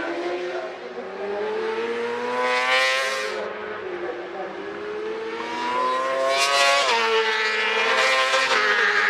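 Four-stroke racing motorcycle engines at high revs, the pitch climbing steadily as they accelerate and dropping sharply twice, about three and seven seconds in.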